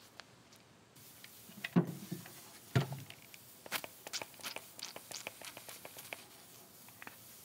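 Two handling knocks, then a run of short crackling pops as water is added to a wet cloth under a hot soldering iron and boils into steam, steaming a dent out of the wood.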